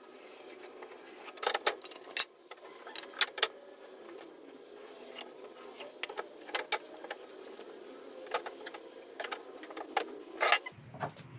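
Wooden boards knocking and clattering as long pine planks are handled and laid in place, a scattering of sharp knocks at uneven intervals over a steady faint hum.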